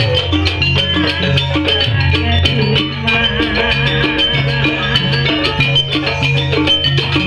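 Live Banyuwangi-style gamelan music: fast, steady drumming with ringing metal-keyed percussion notes over low sustained gong-like tones.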